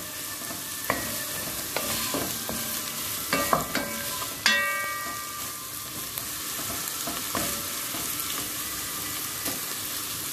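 Diced onions sautéing in a pot with a steady sizzle as a wooden spoon stirs and scrapes them. The spoon knocks against the pot a few times, loudest about four and a half seconds in.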